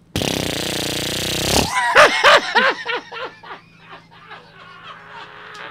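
A raspberry blown close into a microphone: a loud, buzzy lip-flutter lasting about a second and a half. Laughter follows, loud at first and dying away over the next few seconds.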